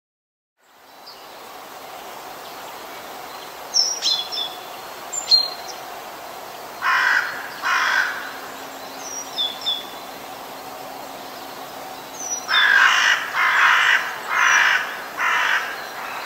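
Crows cawing, twice about seven seconds in and four times near the end, over a steady outdoor hiss. A few short, high bird chirps come earlier.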